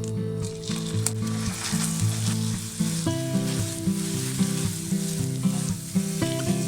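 Food sizzling steadily in a hot frying pan, with background music playing under it.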